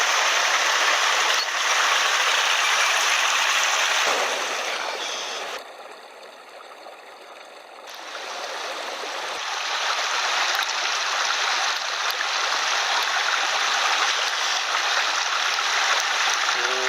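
Small mountain headwater stream rushing over rocks, a steady wash of water. About five seconds in it drops suddenly much quieter for a couple of seconds, then swells back to full strength.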